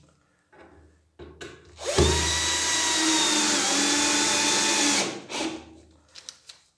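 Cordless drill driving a screw into a wooden slat. The motor runs steadily for about three seconds and its whine dips a little midway as the screw bites. A few light knocks of handling wood come before and after.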